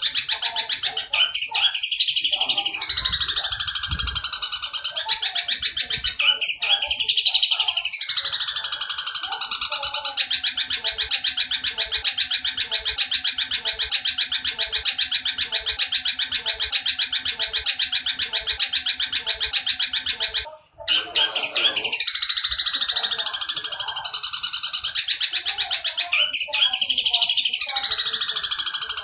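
Oriental dollarbird calls: a fast, harsh chattering of rapidly repeated notes, broken by downward-sliding phrases, in a sped-up recording. The sound cuts out for a moment about two-thirds of the way through, then the same pattern starts again.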